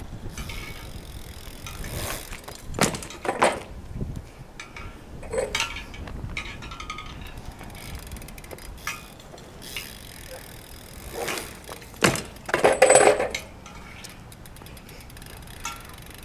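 BMX bike rolling on asphalt, with several sharp metallic clatters and knocks as the bike comes down from flat 360 attempts. The loudest cluster of clatter comes about twelve seconds in.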